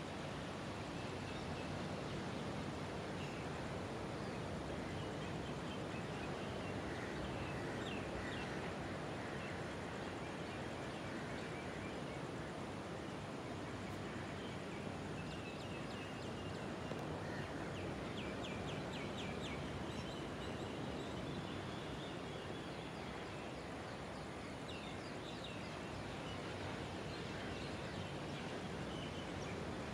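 Night outdoor ambience: a steady background hiss with faint bursts of rapid clicking calls from a small animal, heard a few times and clearest about two-thirds through.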